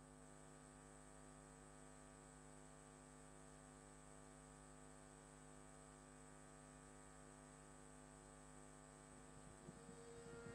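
Near silence: a faint, steady electrical hum made up of several held tones, with faint irregular sounds stirring near the end.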